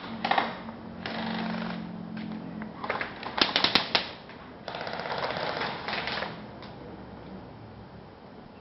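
Airsoft guns firing in rapid automatic bursts: a rattle of quick clicks, several bursts in turn, the loudest about three and a half seconds in.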